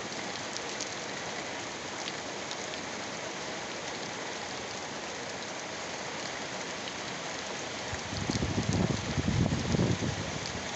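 Heavy rain falling steadily, an even hiss with small drop ticks. About eight seconds in, a louder low rumble comes in surges over the rain.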